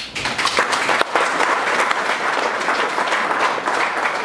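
Audience applauding, many people clapping together.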